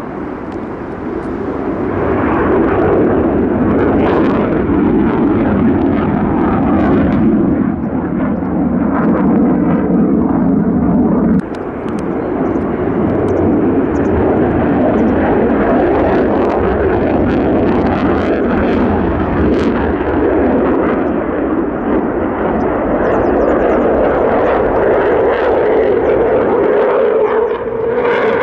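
F-15J fighter's twin Pratt & Whitney F100 turbofan engines making loud, continuous jet noise as the aircraft manoeuvres overhead. The noise swells over the first couple of seconds and drops suddenly about eleven seconds in.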